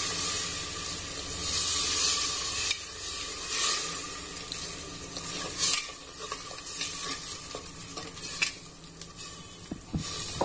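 Water splashed into hot oil and yogurt masala in an aluminium pressure cooker, sizzling in bursts, with a steel spoon stirring and clinking against the pot. The sizzle is loudest in the first few seconds and dies down after that.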